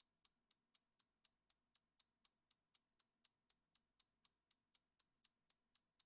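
Faint, steady clock-like ticking, about four sharp high ticks a second: a countdown-timer tick sound effect.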